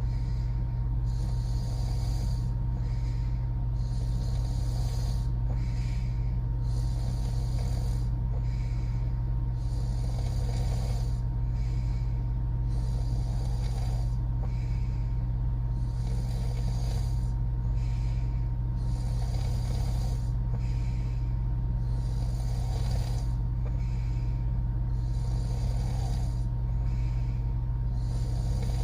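A woman snoring with her mouth open, soft snoring breaths recurring about every two seconds. Underneath is a steady low hum.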